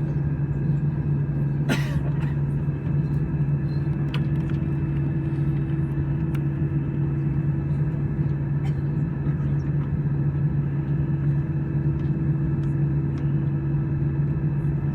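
Steady, unchanging drone of an Airbus A320's engines and airflow heard from inside the cabin, with a sharp click about two seconds in.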